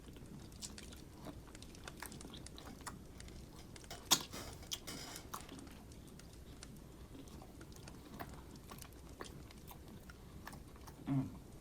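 Faint chewing and biting at the mouth: rotisserie chicken being eaten, with small irregular wet clicks and one sharper click about four seconds in.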